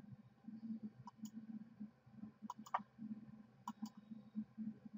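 Computer mouse clicks, about three quick pairs a second or so apart, over a faint low background hum.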